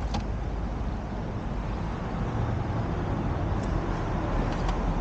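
Steady low background rumble of road traffic, with a faint click near the end.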